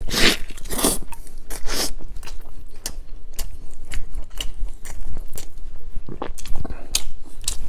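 Close-up eating sounds: a person biting and chewing crunchy food, with irregular crunches and wet clicks of the mouth, the strongest bites in the first two seconds.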